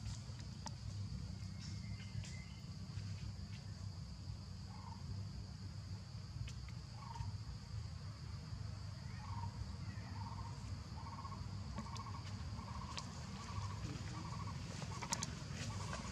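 Steady high-pitched insect drone over a low rumble. From about seven seconds in, an unseen animal gives a run of short, evenly repeated calls, about one and a half a second.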